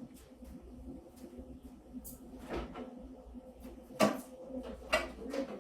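A few light knocks and clicks of something being handled, the loudest about four seconds in, over a faint steady hum.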